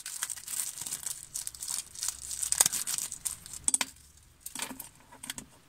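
Packaging crinkling as it is handled: a dense run of crackles for the first three seconds or so, then a few scattered rustles and clicks.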